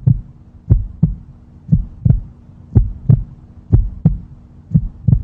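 Heartbeat sound effect: pairs of low thumps about once a second, over a faint steady hum.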